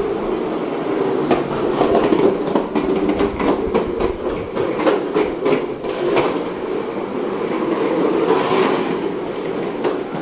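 PlasmaCar ride-on toy's plastic wheels rolling over a hard floor: a steady rumble broken by many quick clicks and knocks.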